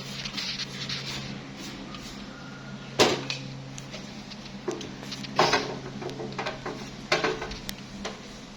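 A few sharp knocks and clatters of things being handled, the loudest about three seconds in, over a steady low hum.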